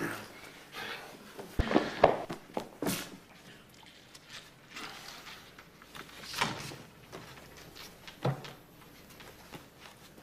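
Scattered knocks and thumps with a few footsteps, as a large wooden toy chest is opened and rummaged. The sharpest knocks come around two to three seconds in, with a softer rustling thump about six seconds in and another thump near eight seconds.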